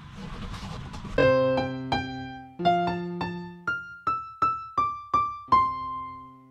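A short keyboard melody in separately struck, decaying notes, ending on a held chord that fades out.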